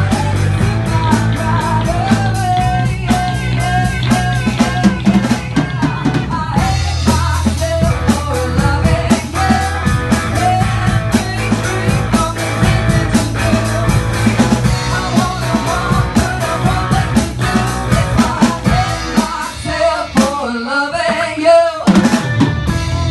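Rock band rehearsing: electric guitar, electric bass and drum kit playing together, with a man singing lead. About three-quarters of the way through, the bass and drums drop out for a couple of seconds, leaving the guitar alone, then the full band comes back in.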